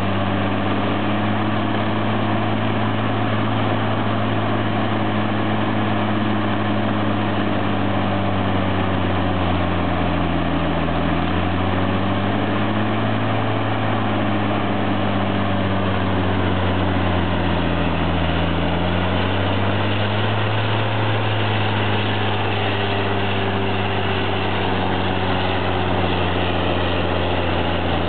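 Bandit Beast 3680 horizontal grinder's diesel engine running under heavy load while grinding brush bales, with the noise of the grinding over it. The engine's pitch sags twice, around ten and seventeen seconds in, as it is loaded down by the feed, then recovers.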